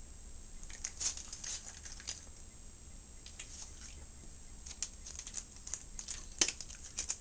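Dog eating dry kibble from a bowl, taking a piece at a time: irregular, scattered crunches and small clicks as each piece is picked up and chewed.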